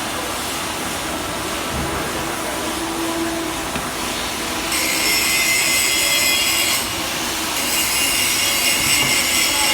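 Steady workshop din, joined about five seconds in by a harsh, high-pitched hiss from metalwork on a welding job, which breaks off briefly near seven seconds and starts again.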